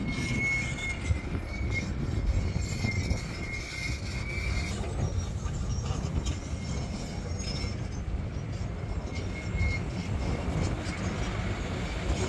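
Honeybee swarm buzzing, under a steady low rumble of wind on the microphone. A thin high whine comes and goes over it.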